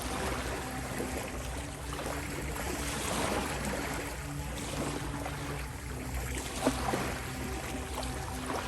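Gentle ocean waves washing in and out, swelling and fading every couple of seconds, with small splashes and one sharper click about two-thirds through. Beneath them runs a soft, steady musical drone, the 528 Hz healing-tone layer of a sleep mix.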